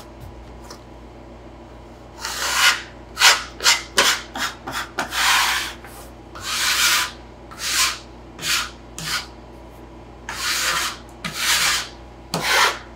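A metal bench scraper and a hand scraping and sweeping flour and dough scraps off a wooden butcher-block worktable: a dozen or so short, irregular scraping strokes, starting about two seconds in.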